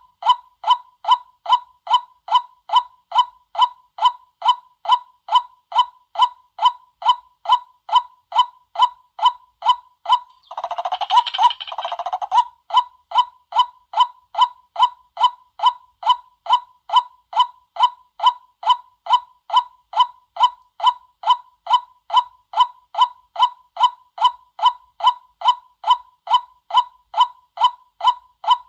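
White-breasted waterhen lure-call recording: short clucking notes repeated very evenly, about two a second, with a longer, rougher burst of calling about ten to twelve seconds in.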